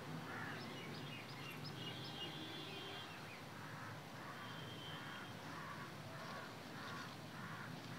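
Faint bird calls: a string of short repeated calls, about two a second through the second half, with a few higher chirps between one and three seconds in.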